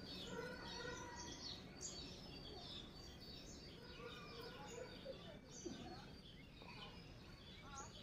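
Small birds chirping and twittering in quick, scattered calls over a faint steady background noise.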